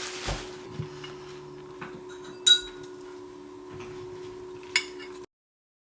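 Kitchen dishes and utensils clinking: a few light knocks and one sharp, bright clink about two and a half seconds in, over a steady low hum. The sound cuts off abruptly near the end.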